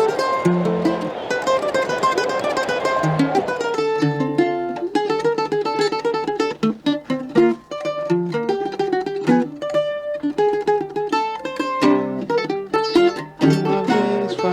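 Bandolim (Brazilian mandolin) playing solo: for the first few seconds a dense, shimmering tremolo, then a run of separate plucked notes.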